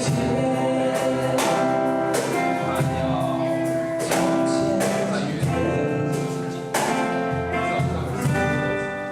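Acoustic guitar music: chords strummed in strokes and left ringing between them.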